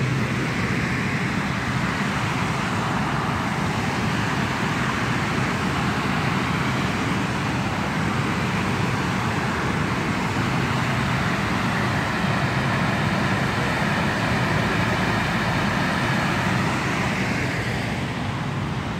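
Steady rush of a river in flood, high and fast-moving after heavy rain, pouring over a low dam and running under the bridge: a constant, even wash of water noise.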